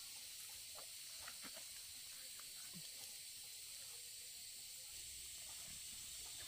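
Quiet background with a steady high hiss and a few faint, short chirps and pips scattered through it.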